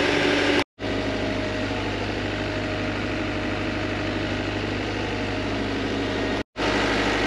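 Steady drone of yacht engine-room machinery running, a constant low hum with a noisy wash above it. It cuts out briefly twice, near the start and near the end.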